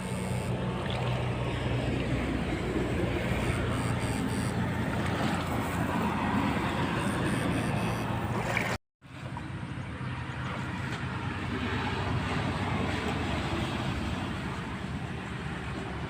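Steady rushing noise with a faint low hum running under it, cut off for a moment about nine seconds in.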